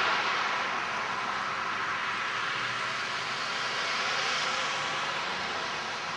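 Road traffic going by: a steady hiss of tyres on the road, loudest at first and slowly easing off.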